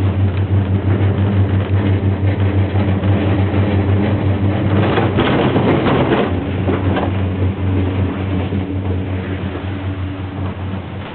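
A ski-lift gondola cabin riding along its cable, with a steady low hum and rattle. About five seconds in, a louder rush of noise and clatter lasts for around a second and a half.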